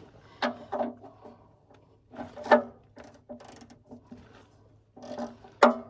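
Ratchet wrench with a socket clicking in several short runs while loosening an oil drain plug.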